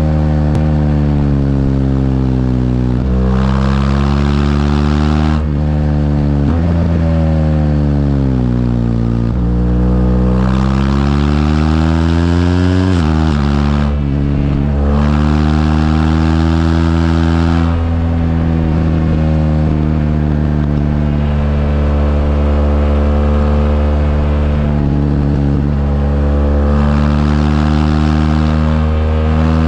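BMW R1200GS LC's boxer twin engine running on the move, its revs sinking and climbing over the first thirteen seconds, dropping sharply about thirteen seconds in, then holding steady revs.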